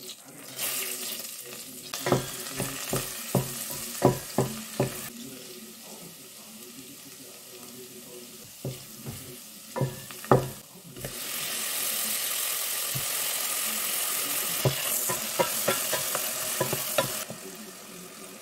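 Minced garlic sizzling in melted butter in a stainless steel pot, with a wooden spoon knocking against the pot as it stirs. About eleven seconds in, the sizzle turns louder and hissier for several seconds, then drops back near the end.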